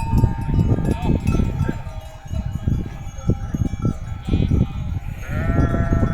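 A flock of sheep over a dense low rumble. One sheep gives a long bleat near the end.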